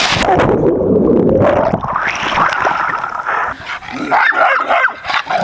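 A dog whining: a long whine that dips and then rises in pitch, followed about four seconds in by a few shorter yips.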